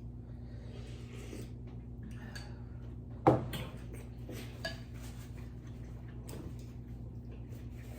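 Quiet eating sounds of spoons and bowls clinking, with one louder knock a little over three seconds in. A steady low hum runs underneath.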